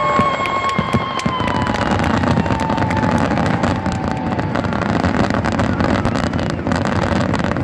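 Crowd noise at a fireworks display, with scattered crackles throughout. A steady pitched tone slides slowly down in pitch during the first few seconds and then fades out.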